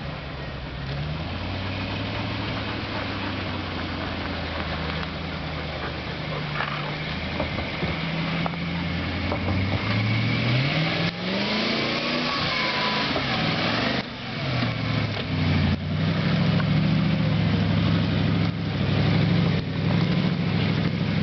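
Engine of a vehicle being driven off-road, running with its pitch shifting up and down. It revs up clearly about halfway through and runs louder toward the end.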